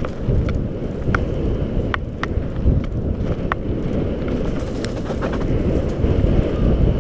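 Mountain bike riding fast down a dry dirt trail: a dense rumble of tyres over the ground with wind buffeting the microphone, and scattered sharp clicks and rattles from the bike and stones.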